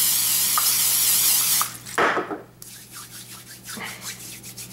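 Spray-butter bottle spraying onto an open hand: a loud hiss lasting about a second and a half, then a shorter burst about two seconds in. After that, buttered hands rubbing together in quick, soft strokes.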